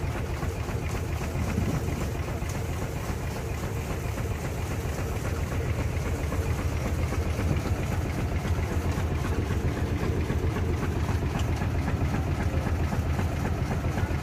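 Steam traction engine running steadily, heard from its operator's platform: a low mechanical rumble with the quick, even beat of the engine and its gearing.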